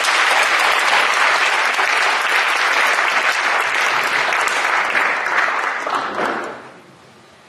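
Audience applauding, a steady clapping that dies away about six and a half seconds in.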